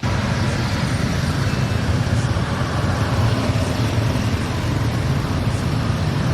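A steady, loud rumble with hiss, like a running engine or heavy machinery. It starts abruptly and holds without change.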